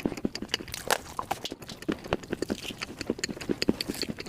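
Close-miked eating of a soft matcha dessert: wet chewing with quick mouth clicks and smacks, several a second in an uneven rhythm.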